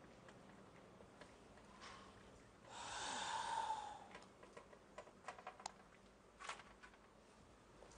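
A breathy sigh lasting about a second, followed by a few light clicks and clinks of dishes on a tray as it is set down on a table.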